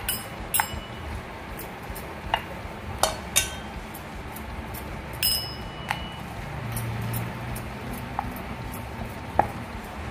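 About nine sharp metallic clinks at irregular intervals, some with a brief ring, as naan dough is rolled out with a steel rolling pin on a stone rolling board.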